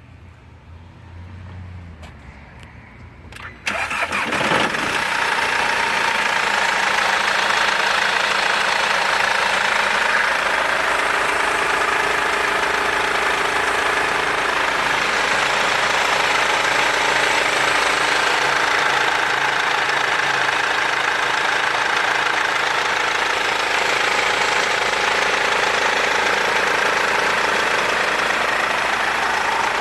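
Mercedes-Benz W204 C-Class engine starting after a few faint clicks, catching nearly four seconds in, then idling steadily. With its timing chain freshly replaced, it is a healthy engine running without chain rattle.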